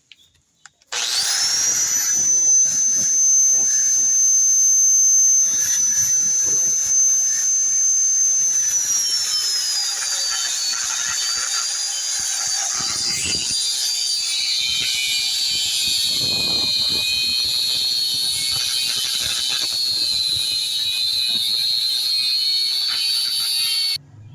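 A high-speed power tool spins up with a high whine and runs steadily. About eight seconds in its pitch drops and holds lower as it loads against the work, until it cuts off abruptly near the end.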